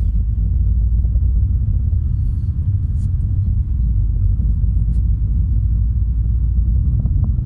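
Steady low road rumble of a car on the move, heard from inside the cabin: engine and tyre noise.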